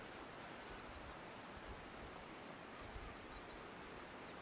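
Faint twittering of a small bird, a string of short quick high notes, over a low hiss of outdoor air and intermittent wind rumble on the microphone.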